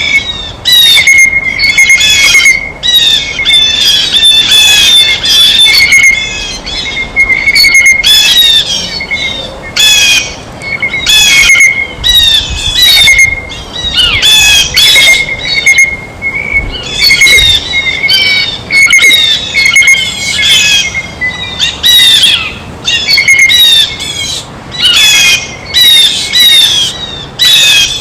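Blue jays giving loud, harsh squawking calls over and over, one after another with barely a pause.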